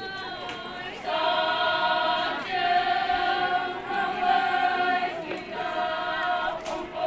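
Group of Konyak Naga women singing a traditional chant together in unison, in long held notes, in several phrases separated by short breaks.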